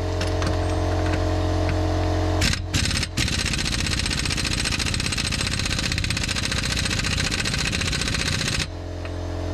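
Half-inch air impact wrench hammering on a 32 mm rear axle nut. After a couple of short blips, it starts about three seconds in, rattles rapidly for about five seconds, then stops suddenly. A steady low hum runs underneath.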